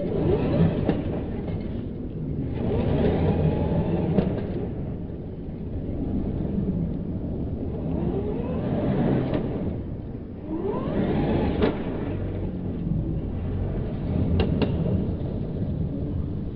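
Radio-controlled buggy's motor whining up in pitch in repeated surges as it accelerates, with rumble from its tyres on tarmac and a few sharp clicks.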